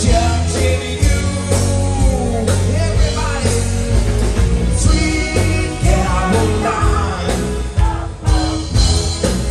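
Live band playing through PA speakers: a woman singing into a microphone over electric bass guitar, with a strong steady beat in the low end.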